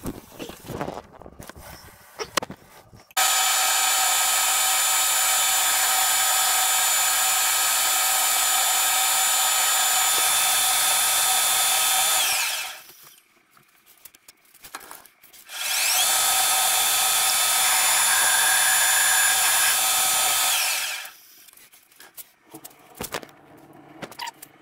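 Pratt & Whitney metal lathe running under power with a steady high-pitched whine, in two runs of about nine and five seconds. Each run ends with the whine falling in pitch as the spindle coasts to a stop, and the second run starts with a rising whine as it spins up. Faint clicks and clatter fill the gaps between runs.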